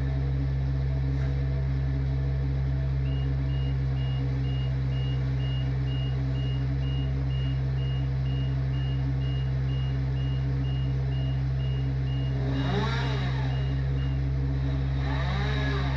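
Heavy engine running steadily. A backup alarm beeps about twice a second for most of the stretch. Near the end the engine briefly rises and falls in pitch.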